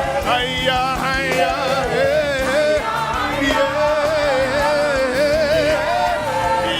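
Live gospel worship song: a solo singer carries a wavering, ornamented vocal line that slides between notes, over steady musical accompaniment.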